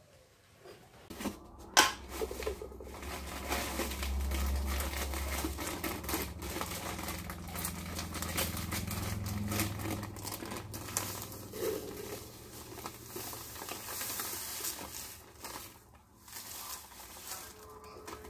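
Plastic packaging crinkling and rustling as bags of rusks are handled and their contents tipped into a large plastic jar, with a sharp knock about two seconds in and a low rumble underneath for several seconds in the first half.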